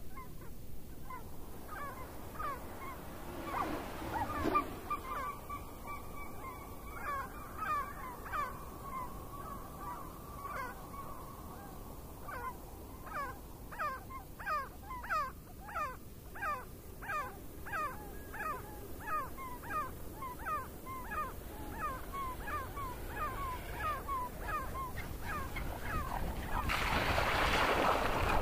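Sheet of paper rustling as it is folded and creased by hand, loudest near the end, with a long run of short chirping animal calls, about two a second, through the middle.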